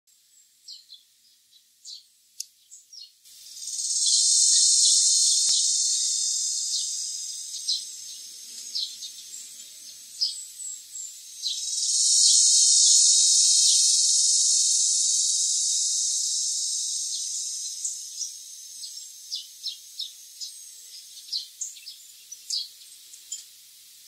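Eerie cry of a Philippine cicada species: two long, high-pitched calls, each swelling up quickly and then fading slowly over several seconds, the first about three seconds in and the second near the middle. Short sharp high chirps are scattered before, between and after them.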